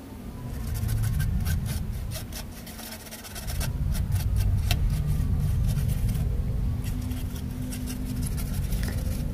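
Toothbrush bristles scrubbing a laptop motherboard's circuit board in quick repeated scratchy strokes, pausing briefly past the middle. A steady low rumble runs underneath.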